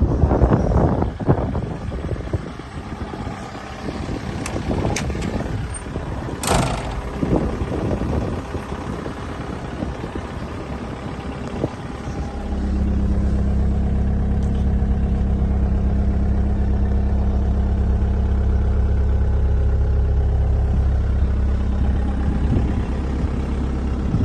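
Kubota U55-4 mini excavator's diesel engine running, with irregular clanks and knocks of metal parts for the first half and one sharp strike. About halfway through, a steady, louder engine drone sets in and holds.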